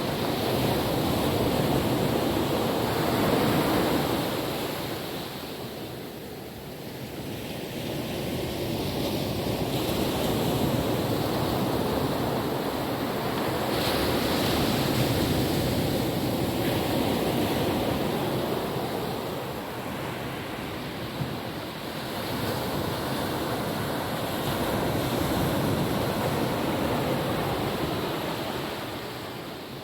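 Calm ocean waves breaking and washing on a beach, the surf swelling and easing every several seconds, with some wind on the microphone.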